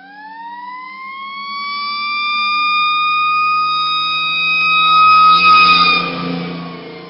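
Fire truck siren winding up into a high wail, holding, then starting to wind down near the end, loudest about five seconds in. The truck's engine hums underneath, its note dropping about two and a half seconds in.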